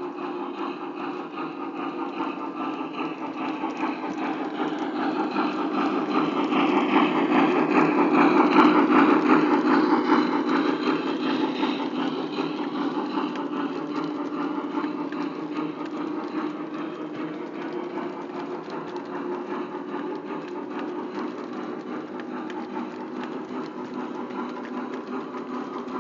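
Lionel O-gauge toy train running on three-rail track, a steady mechanical rumble and rattle of motor and wheels. It swells to its loudest about eight to nine seconds in as the locomotive passes close by. A long string of hopper cars then clatters past at a steady level.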